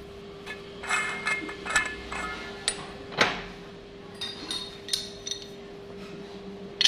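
Metal clinks and knocks from handling tools and fittings at a metal lathe, some ringing briefly, with one sharp knock about three seconds in, over a steady hum.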